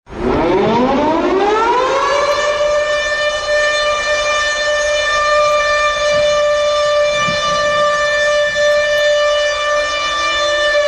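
Ice hockey goal horn of the siren type: it winds up in pitch over about two seconds, then holds one loud, steady tone with many overtones.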